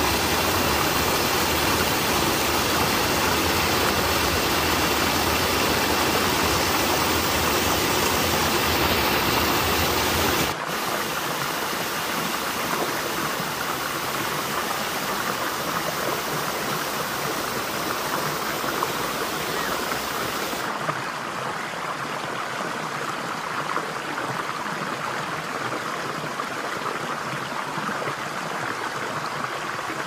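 Mountain stream rushing and splashing over rocks in a small rapid, a steady full rush of water. About ten seconds in it drops a little and loses its low rumble, and about twenty seconds in it loses some of its high hiss.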